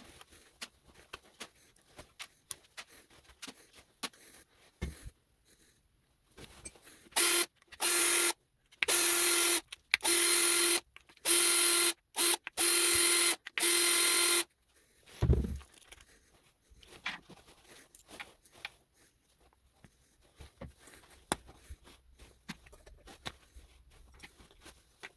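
Small metal connectors and parts clicking and clinking as they are handled and taken apart. In the middle, a power tool runs in about six short bursts at a steady pitch, the loudest sound, followed by a single low thump.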